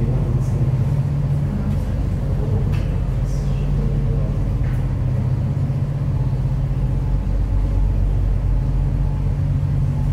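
Steady low drone of an inland tanker barge's diesel engine as the vessel motors slowly past.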